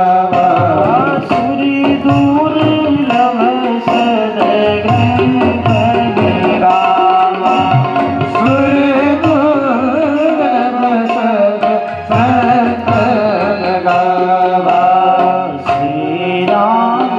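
Devotional singing with tabla accompaniment, the voice carrying a gliding melody over a run of tabla strokes and a held tone underneath.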